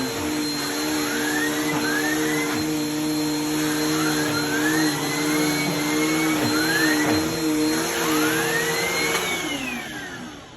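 Vacuum cleaner running with a steady motor hum and several short rising whistles as the suction changes. About nine seconds in it is switched off and the motor winds down, its pitch falling.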